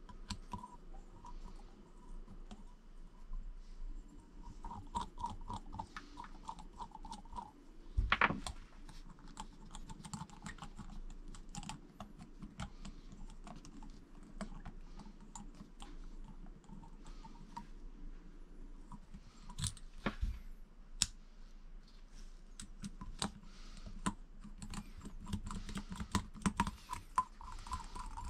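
Irregular small clicks and taps of small parts being handled and test-fitted on a workbench, with a louder knock about eight seconds in.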